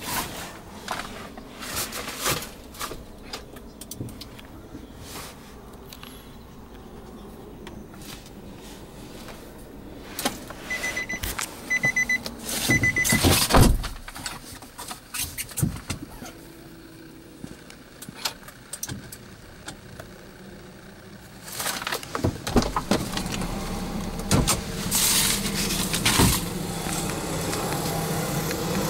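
Scattered clicks and knocks inside a Nissan X-Trail's cabin, with three short, high electronic beeps about eleven seconds in. A steadier noise comes in over the last several seconds.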